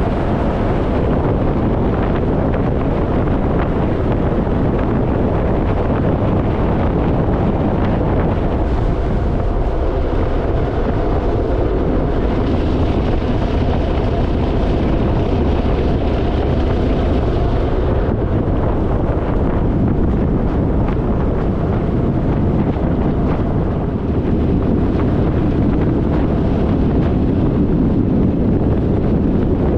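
Harley-Davidson Fat Boy's V-twin engine running steadily at road speed, with wind rushing over the microphone.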